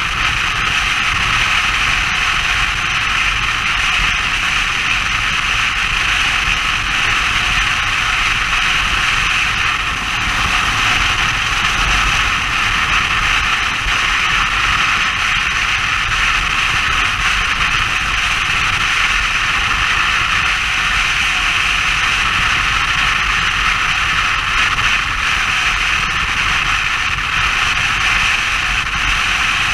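Motorcycle travelling at a steady speed: an even, unbroken rush of wind and road noise over the low engine rumble.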